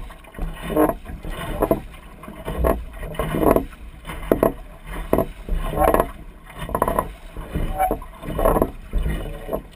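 Lake water slapping and splashing against the hull of a small sailboat under way, in surges a little more than once a second, over a low rumble of wind on the microphone.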